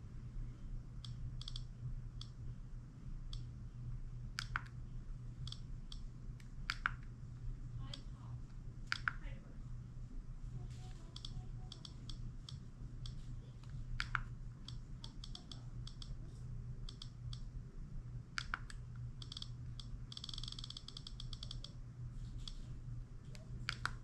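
iPod classic click-wheel clicker ticking as the wheel is scrolled through the menus, in scattered runs with a quick burst of rapid ticks about twenty seconds in. A few sharper, louder clicks come in between, over a steady low hum.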